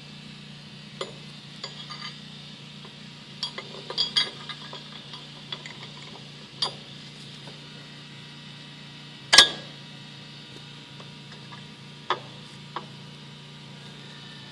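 Metal parts clinking and tapping as a connecting rod cap is fitted onto its rod in a Subaru 2.2 engine: scattered light clinks, a cluster of them about four seconds in, one sharp clack about nine seconds in and two more taps near the end, over a steady low hum.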